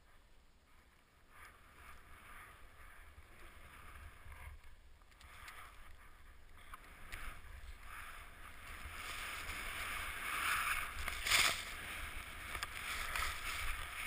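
Skis running through deep powder snow, with wind rumble on a helmet-mounted camera's microphone; the noise grows louder as the skier picks up speed, with a sharp knock about eleven seconds in.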